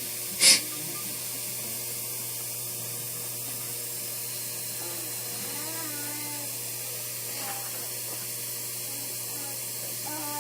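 Steady recording hiss with faint, indistinct voices in the room, and one short, sharp burst of hissing noise about half a second in.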